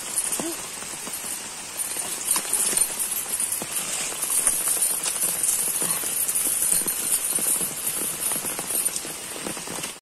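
Rain falling on leaves and ground: a steady hiss with scattered drops and irregular knocks throughout.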